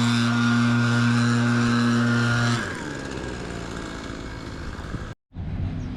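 An engine running at a steady, unchanging pitch, which drops away abruptly about two and a half seconds in, leaving a quieter low rumble; a short gap of silence near the end.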